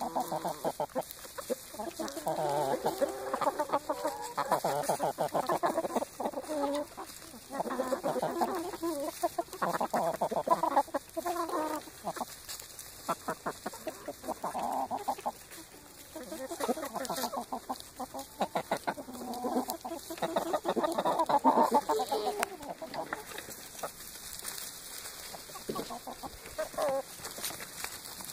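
A flock of chickens, Golden Comet hens with a rooster among them, clucking and calling close by. The calls come in busy bunches of a few seconds separated by quieter spells.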